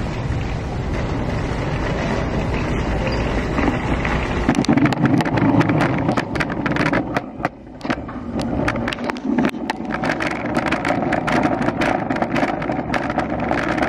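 Handling noise on a handheld phone microphone: a steady rumble, then from about four seconds in a dense run of clicks and rustles.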